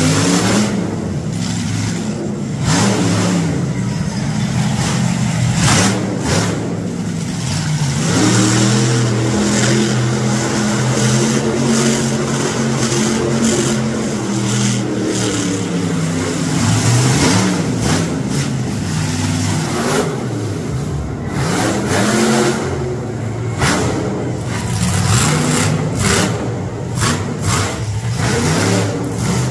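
Monster truck engines revving hard and easing off, the pitch rising and falling, held high and steady for several seconds in the middle. Short sharp cracks come between the revs, most of them in the second half.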